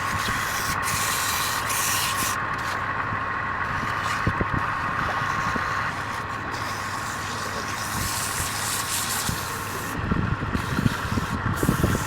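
Wood lathe running steadily while a turning tool cuts the spinning wood, the cutting turning rougher and louder near the end.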